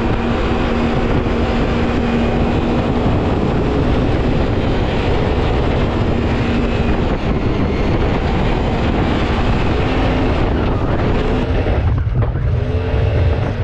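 Mini jet boat's Yamaha four-stroke engine running steadily at speed through its jet drive, with water rushing along the hull. Shortly before the end the hiss thins out and the engine sounds deeper.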